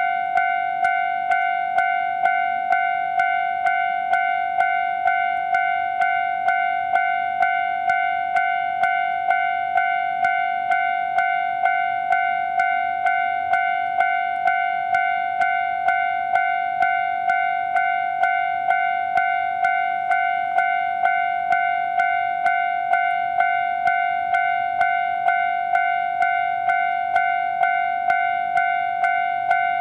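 Japanese railway level crossing warning bell ringing its repeated "kan-kan" alarm, an electronic bell-like tone struck evenly about one and a half times a second, signalling that a train is approaching.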